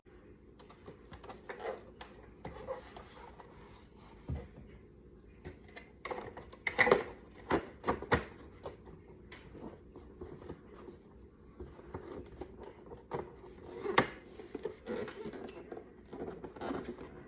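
Plastic parts of a Pentair Racer pool cleaner being handled and fitted together: irregular rubbing, scraping and small clicks, with sharper knocks about seven and fourteen seconds in.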